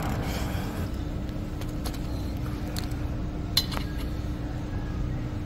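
A few sharp metal clinks of a hand tool on a broken bolt in a car suspension crossmember, the loudest about three and a half seconds in, over a steady low rumble.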